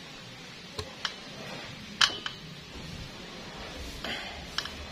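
A few light clicks and taps, the loudest about two seconds in, as a round metal engine cover with sealer on its edge is pushed onto the Yamaha Mio engine by hand and seated.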